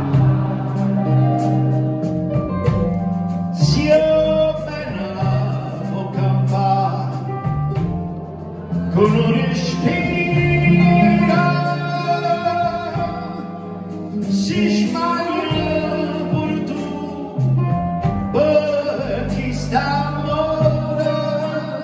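A male singer sings live with a small band of guitar, upright bass, drums and keyboard, holding several long notes that waver in pitch.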